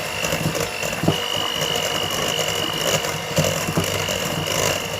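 Electric hand mixer running at one steady speed, whisking a thin liquid cake batter, with irregular clicks and knocks from the beaters against the bowl.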